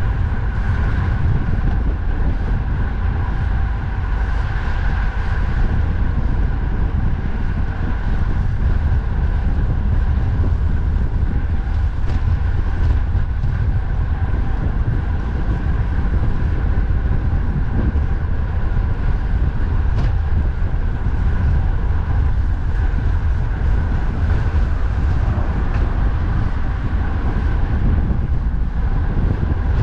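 Steady heavy wind rumble on a bicycle-mounted microphone, mixed with the running noise of expressway traffic, while riding at speed.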